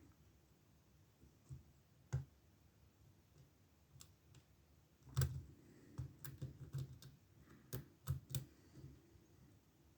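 Faint, irregular metallic clicks and taps of a lock pick and tension wrench working the pins inside a Ruko pin-tumbler lock cylinder during picking, with a quick run of clicks in the second half.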